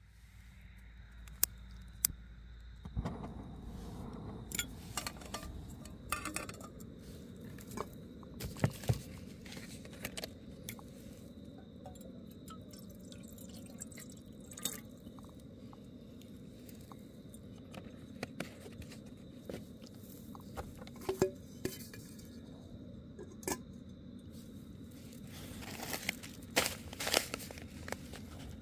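Camp cooking gear and food packets being handled: scattered clinks, taps and crinkles, over a steady low rushing sound that starts about three seconds in.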